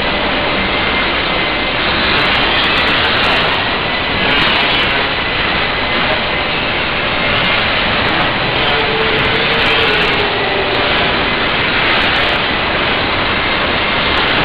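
Loud, steady rushing noise of factory machinery, with a faint hum.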